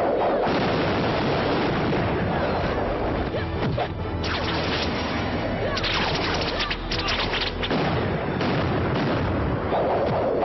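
Martial-arts film fight sound effects: a shout at the start, then two clusters of quick hits and whooshes about four and six seconds in, over background music.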